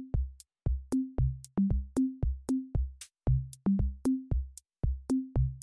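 Intro music made of a steady pattern of pitched drum hits, about three to four a second, moving between a few low notes.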